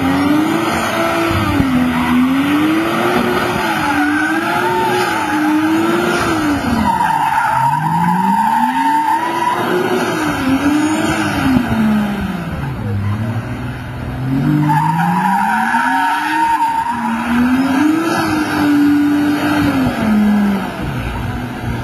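Turbocharged straight-six of a 2003 Lexus IS300 revving up and down over and over while its rear tyres squeal and skid through smoky donuts. The squeal peaks twice, with the revs dropping low between the spins.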